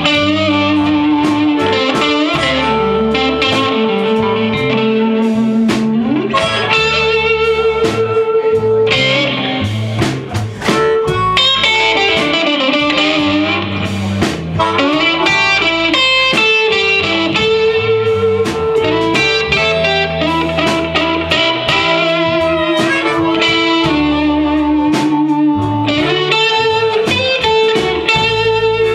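Live blues band playing an instrumental passage. Amplified harmonica, held cupped to the microphone, plays long held notes over electric guitar, bass guitar and drum kit.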